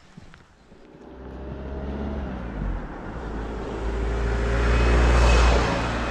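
A motor vehicle approaching and driving past, its engine and tyres growing louder over several seconds and loudest about five seconds in.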